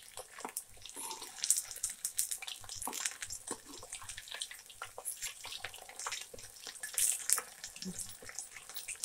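Chicken pieces deep-frying in hot oil in a kadai, a steady sizzle full of rapid crackles, while a steel spoon turns them, with a few sharper clicks of the spoon against the pan. The pieces are well into frying and now turning golden.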